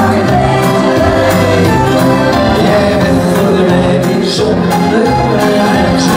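A man singing live into a microphone over backing music with a steady bass line.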